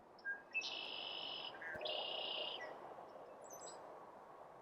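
Songbird calls: two long, steady high notes, each under a second and separated by a short gap, with a few faint short high chirps after them, over a low woodland hiss.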